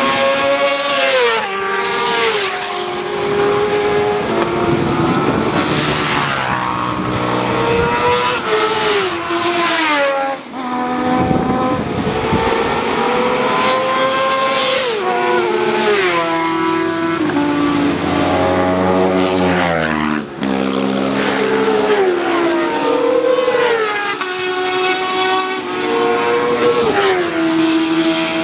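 Racing sport motorcycles passing at speed one after another. Their engines rev high, with the pitch climbing and then dropping in steps as the riders change gear and brake for the corners.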